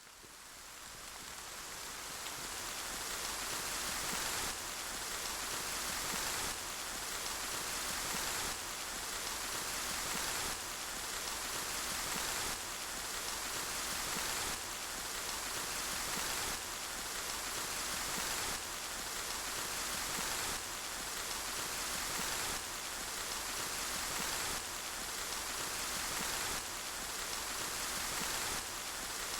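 Steady rain falling, an even hiss that fades in over the first few seconds, with a slight pulse about every two seconds.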